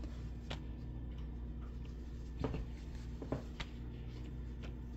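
Flour tortillas being folded over shredded cheese in a glass baking dish: a few faint soft rustles and taps, over a steady low background hum.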